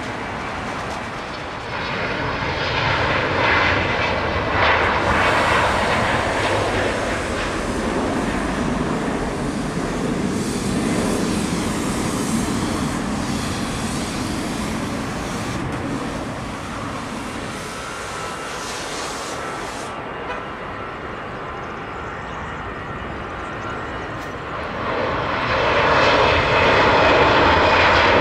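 Jet engines at takeoff thrust: an Embraer regional jet's engines grow loud about two seconds in as it rolls and climbs away, then fade. Near the end a Swiss Airbus A321's engines grow loud on its takeoff roll, the loudest part.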